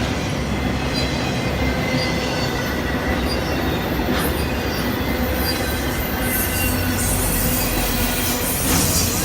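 BNSF train rolling past: a steady rumble and clatter of wheels on the rails, with faint high wheel squeal and a few short clanks.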